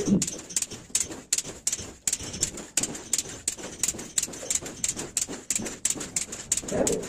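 A rapid, fairly even series of short sharp clicks or taps, about four a second.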